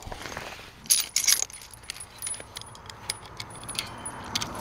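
Steel chain clinking and rattling as an old-style chain wire strainer is levered along it link by link, tensioning a fence wire. A louder cluster of metallic clanks comes about a second in, then lighter clicks.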